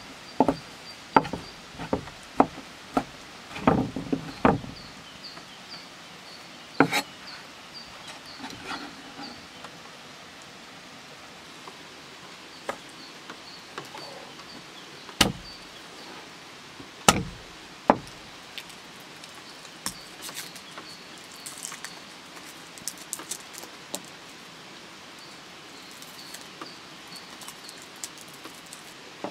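Large kitchen knife chopping on a wooden board, about six sharp chops in the first five seconds. Then a few single sharp knocks on the board, and light papery crackles as garlic cloves are handled and peeled. Faint high chirping in the background.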